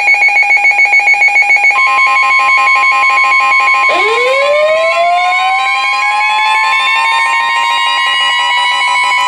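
Layered electronic emergency alert tones. A rapid, pulsing high beep runs over a steady tone, a second steady tone joins about two seconds in, and about four seconds in a siren-like tone winds up from low pitch and levels off.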